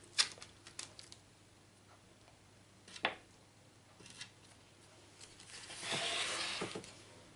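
Kitchen knife cutting through puff pastry on a parchment-lined baking tray: a few light clicks and taps as the blade presses down, then a longer scraping rustle about six seconds in.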